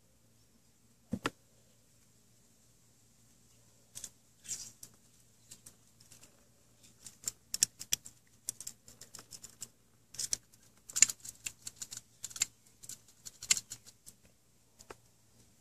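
Degreaser squirted from a syringe into a Keihin CV carburetor's fuel and air passages: many short spitting hisses and small clicks, coming thick and fast in the second half. There is a single knock about a second in as the carburetor body is handled.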